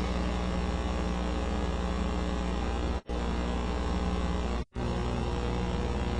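Steady low hum made of several level tones, cutting out completely for an instant twice, about three seconds and about four and a half seconds in.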